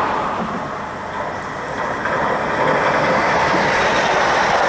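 Rail noise of an approaching regional electric multiple-unit train, dipping about a second in and then growing steadily louder.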